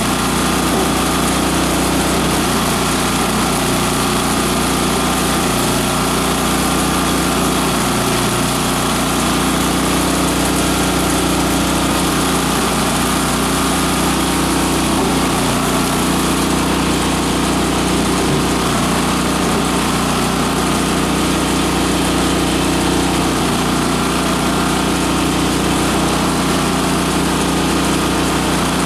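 Multi-purpose chopper/shredder machine running steadily while grinding plant material, a constant machine drone with the rush of the shredded material being thrown out.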